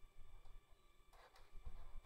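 Quiet room tone with brief faint scuffing about a second in: a cat shifting its paws on a carpeted cat tower.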